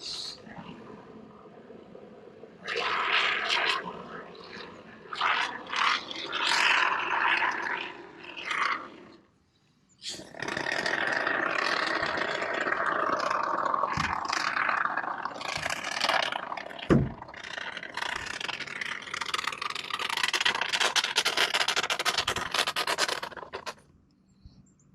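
Aerosol can of Evercoat sealant foam hissing as it sprays: several short spurts, a brief pause, then one long steady spray with a couple of knocks, stopping just before the end.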